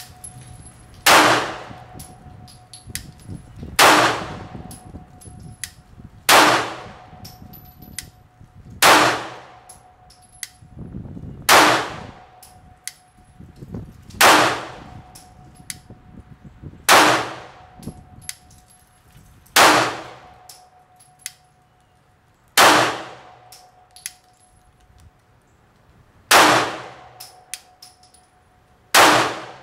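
Glock 19 9mm pistol firing reloaded ammunition in slow single shots, eleven of them about every two and a half to three and a half seconds, each followed by a brief metallic ring, with faint clicks between shots.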